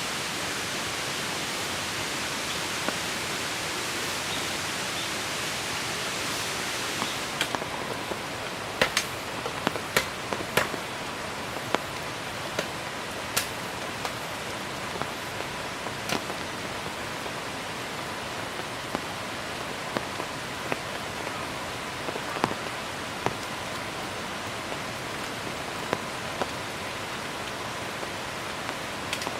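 Heavy rain falling steadily, a continuous hiss. About seven seconds in the hiss thins slightly, and sharp taps of individual drops start to stand out, scattered irregularly through the rest.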